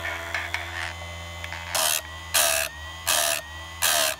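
Small electric chainsaw sharpener humming steadily as it runs, its grinding wheel brought down on a chain cutter tooth four times in the second half: four short bursts of harsh grinding about half a second apart.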